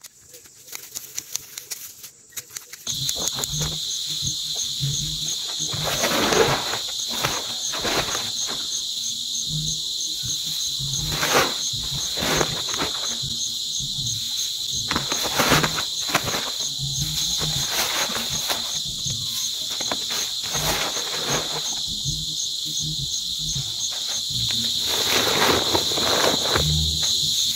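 Insects chirring in a steady, high-pitched drone with a fast pulse, starting about three seconds in, over repeated rustling and ripping as handfuls of grass are torn up and pushed into a woven plastic feed sack. Before the insects come in, quieter snipping and rustling of grass stalks.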